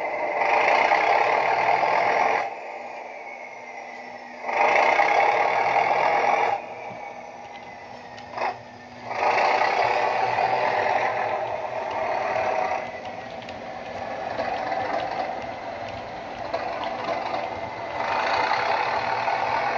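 Sound-decoder recording of a Class 37 diesel's English Electric V12 engine thrashing under power through a model locomotive's small speaker. It comes in loud surges of two to three seconds, each dropping back to a quieter run, with a turbocharger whistle falling in pitch as the power drops.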